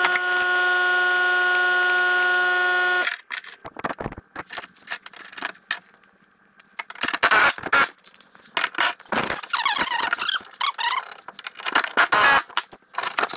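A steady whirring whine for about three seconds that cuts off suddenly. Then irregular clinks, clicks and scrapes of steel bolts, nuts and wrenches being worked on the snow plow's metal mounting brackets.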